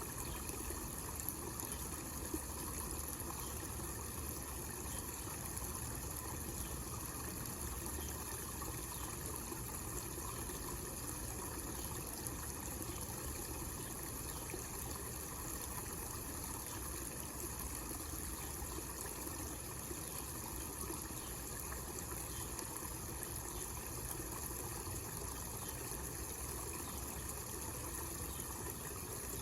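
Homemade miniature waterfall fountain: water spilling steadily over small cascades into a basin, an even trickling splash with no change.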